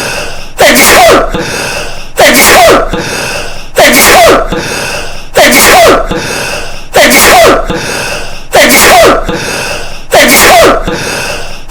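A man's sneeze looped over and over, one identical sneeze about every 1.6 seconds, seven in all, boosted so loud it distorts. A steady hiss fills the gaps between sneezes.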